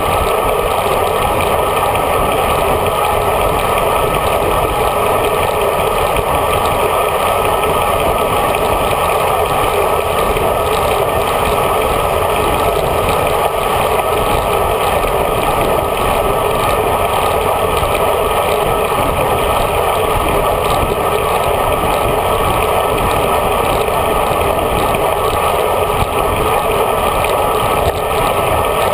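Steady rush of wind and road noise on a handlebar-mounted GoPro on a road bike riding at pace in a group. The noise is loud and unchanging throughout.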